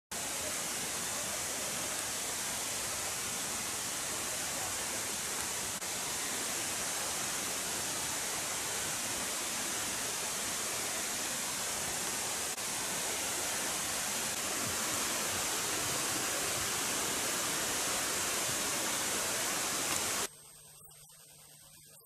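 A steady, even hiss with no rhythm or tone, which cuts off abruptly about 20 seconds in, leaving only a faint low hum.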